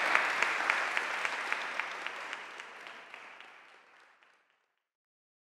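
Audience applauding, many hands clapping, fading out over about four seconds.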